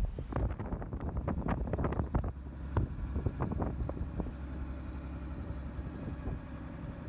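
Wind buffeting the microphone on a boat under way, in gusty low thumps. About two seconds in it eases into a steadier low rumble.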